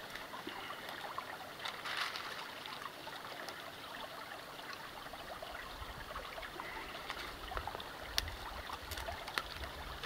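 Shallow creek water trickling and babbling steadily, with a few light clicks of twigs and kindling being handled. A low wind rumble on the microphone comes up about halfway through.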